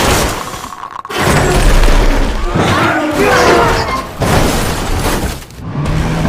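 Film sound effects of a military helicopter crashing: a sudden loud crash about a second in and another near four seconds, with shattering glass and crunching metal.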